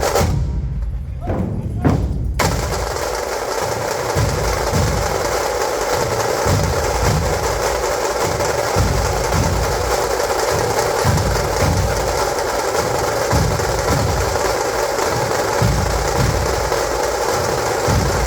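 Procession drumming, likely a dhol-tasha troupe: heavy low drum beats repeating steadily under a dense, continuous crackle of high drumming. For about the first two seconds the sound is muffled, then it comes through in full.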